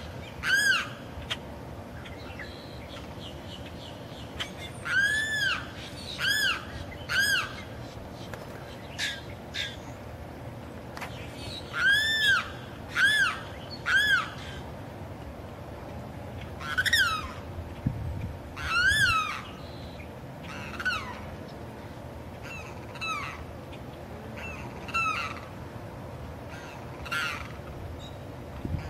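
Limpkin crying over and over, each cry a short call that rises and falls, given in runs of two or three a few seconds apart, the later cries fainter and shorter. It is a male calling to attract a mate.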